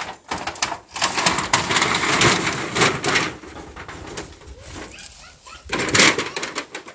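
Rustling and crackling of cut leafy avocado branches and scuffing on dry ground as goats are led in on ropes and start to browse, loudest in two spells near the start and about six seconds in. A bird calls faintly near the middle.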